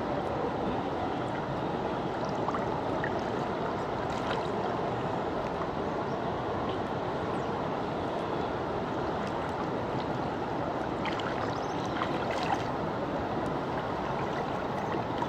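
Shallow river flowing: a steady, even rush of running water.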